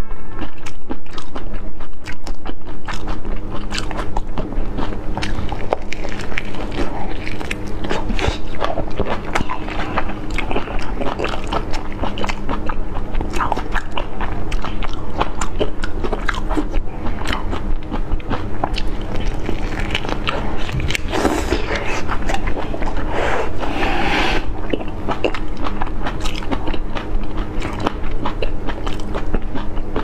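Close-miked eating of whole raw marinated shrimp: wet chewing and biting, with frequent small clicks and crunches of shell.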